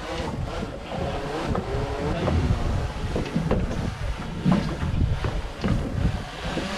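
Small quadcopter drone hovering close by, its propeller whine wavering in pitch, over wind buffeting the microphone.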